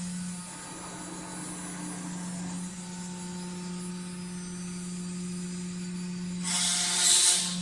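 Acctek AKM6090C mini ATC CNC router running with a steady hum, broken near the end by a short, loud hiss of under a second.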